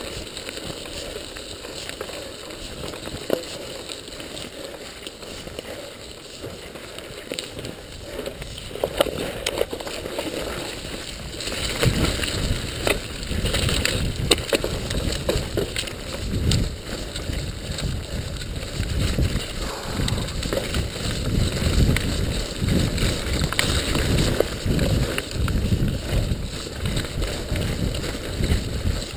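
Mountain bike descending at speed: tyres rolling over wet gravel and dirt, with the bike's chain and frame rattling over bumps. About twelve seconds in, as the bike drops into rough forest singletrack, it gets much louder, with a heavy rumble and a dense rattle of knocks.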